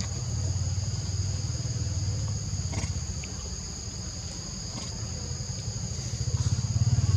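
Steady high drone of insects at two pitches over the low rumble of a running vehicle engine, which grows louder near the end as it comes closer. There are a couple of faint clicks.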